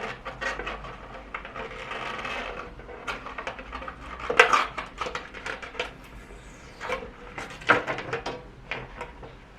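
A sticker label being peeled off a plastic container: crackly tearing noise mixed with short clicks and knocks as the item is handled, with a couple of louder knocks about halfway through and near the end.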